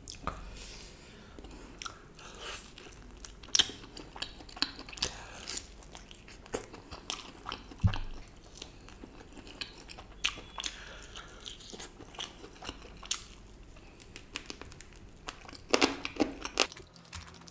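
Close-miked biting and chewing of a sauce-coated fried chicken lollipop: crisp crunches and wet chewing, with a few louder crunches scattered through.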